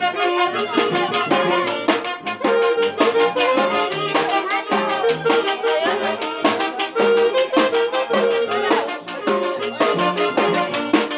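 Brass band music playing a dance tune, with brass melody over drums keeping a steady beat.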